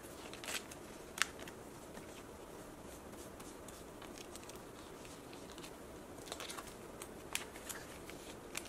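Faint rustling of plastic binder pocket pages as photocards are slid into them, with a few light clicks and taps: a couple near the start and a small cluster in the last few seconds.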